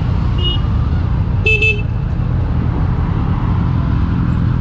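Steady low motorcycle engine and road rumble, with a brief high beep near the start and a louder horn toot about a second and a half in.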